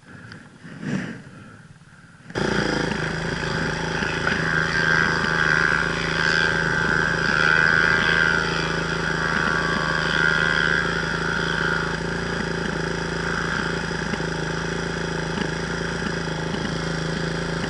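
Dirt bike engine idling steadily, starting abruptly about two seconds in.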